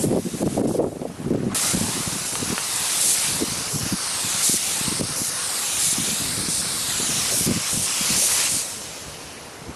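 Pressure-pot spray gun hissing as it sprays primer, starting about a second and a half in and cutting off near the end. Wind rumbles on the microphone underneath.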